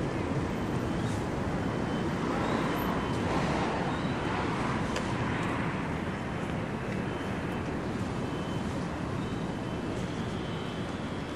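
Steady city street traffic noise, a low rumble with no clear tones, with a vehicle passing that swells and fades in the middle.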